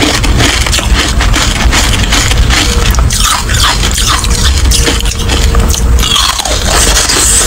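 Carbonated ice being bitten and chewed close to the microphone: rapid crackling and crunching as the frosty ice breaks in the mouth.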